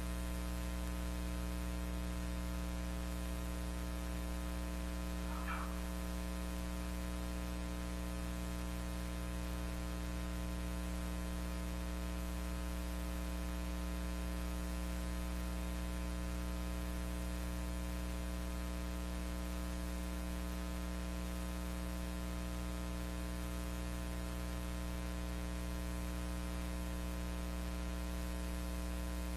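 Steady electrical mains hum with a stack of harmonics over constant hiss. The film itself is silent, so no sound from the scene is heard.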